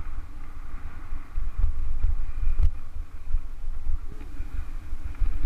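Mountain bike rolling over a dirt trail: wind buffets the camera's microphone as a gusty low rumble, with a few sharp knocks from the bike going over bumps.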